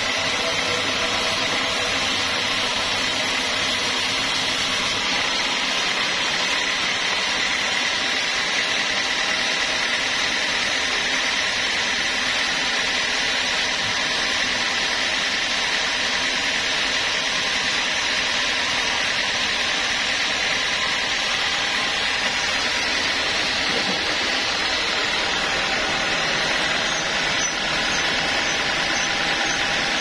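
Band sawmill running steadily as its blade saws lengthwise through a mahogany log, with an even high-pitched tone running through the machine noise.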